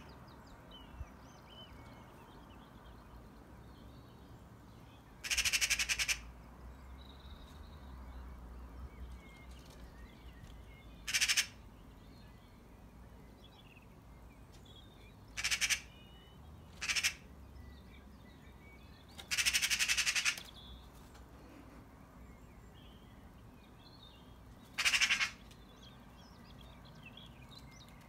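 Eurasian magpie giving its harsh chattering call in six short bursts of about half a second to a second each, spread out with pauses between. It is the alarm chatter a magpie uses when mobbing a cat.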